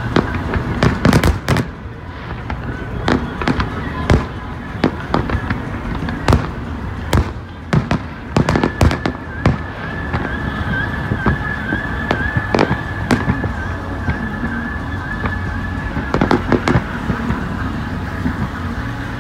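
Aerial firework shells bursting close by: a scattered series of sharp bangs and crackles, coming thickest near the start, in the middle and again near the end. Under them runs the steady road noise of the moving car they are heard from.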